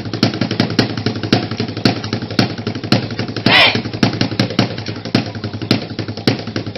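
Fast drumming for the dance, with several sharp strikes a second. A loud shout cuts in about three and a half seconds in.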